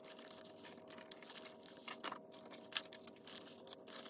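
Paper banknotes being handled and sorted, faint rustles and light clicks scattered through, over a steady low electrical hum.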